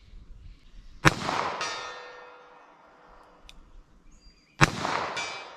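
Two revolver shots with .38 Short Colt cartridges, about three and a half seconds apart. Each is followed about half a second later by the long metallic ring of a distant steel target being hit.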